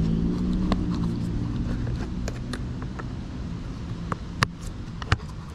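Metal drill bits clicking and rattling against a plastic drill-bit case as a bit is picked out, with two sharper clicks near the end. Under them a low engine-like hum slowly drops in pitch and fades away over the first few seconds.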